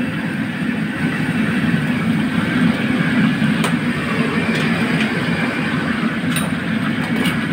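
Steady roar of a commercial gas wok burner running at full flame, with a few sharp metal clinks of utensils against the wok in the second half.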